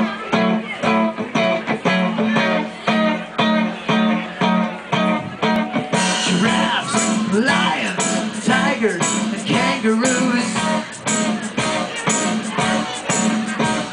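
Strummed guitar music with a steady beat, played over a PA loudspeaker, with singing joining about six seconds in.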